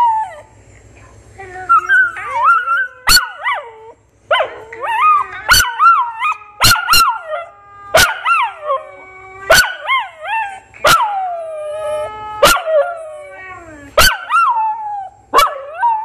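A dog "talking" in a string of howl-like calls that slide up and down in pitch, mimicking speech such as "I love you", with sharp yips breaking in about every second or so.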